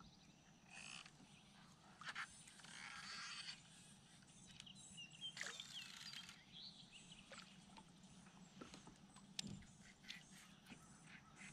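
Near silence: faint outdoor lake ambience with a few small bird chirps about five seconds in and occasional light clicks.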